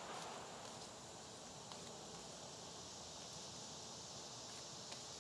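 Faint steady high-pitched drone of cicadas, with a couple of faint clicks.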